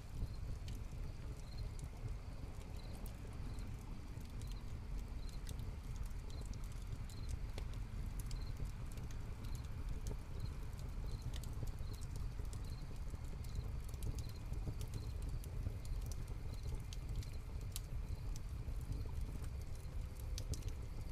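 Hearth fire crackling with scattered sharp pops, while crickets chirp in a regular, steady rhythm over a constant low rumble.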